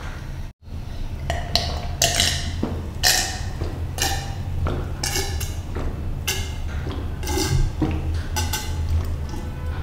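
A person gulping down a drink from a glass, swallowing about once a second in a steady run of gulps.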